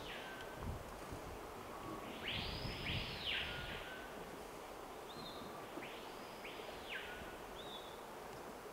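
Outdoor ambience: a bird calling several times, each call sweeping up and back down, some in quick pairs, over a steady background hiss.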